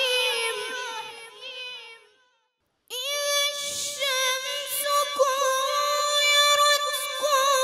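A boy's melodic Quran recitation with a high, ornamented voice. A phrase trails away to a short silence about two seconds in, then a new phrase opens on a long held note.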